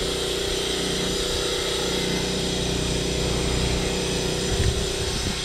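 A small engine running steadily with an even hum, with a few low thumps about four and a half seconds in.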